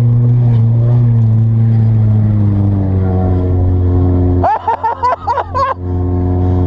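Car engine running steadily under load, its pitch easing down a little partway through. About four and a half seconds in, a roughly one-second burst of higher, wavering sound cuts across it.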